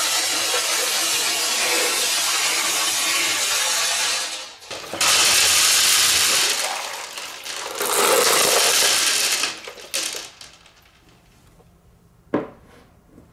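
Marbles splashing and clattering in a water-filled glass tank, in three long dense bouts that die away about ten seconds in. Near the end, a single knock of a wooden block set down on a table.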